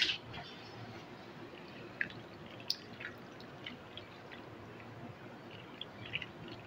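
Cooked macaroni dropped by hand into thick, creamy white sauce in a non-stick pan: scattered soft, wet splats and light ticks. A sharp click comes right at the start.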